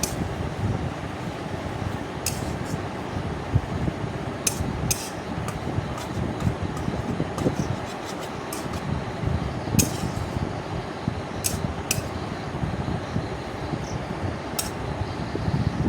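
Ginger and garlic paste frying in oil in a kadai, giving a steady sizzle. A metal spatula clicks and scrapes against the pan about ten times as the paste is stirred.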